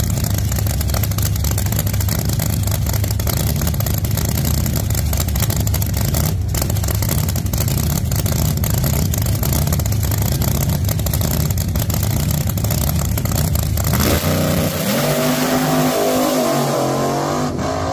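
Pro mod drag car's engine running loud and steady at the starting line, then launching about 14 seconds in, its pitch rising in steps through the gear changes as it accelerates away.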